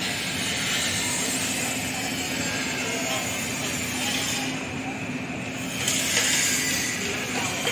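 Construction-site din: a steady mechanical hum and hiss from machinery, with a few faint knocks.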